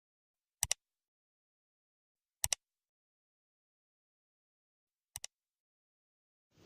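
Three sharp double clicks, spaced about two to three seconds apart, the last one softer, with dead silence between them.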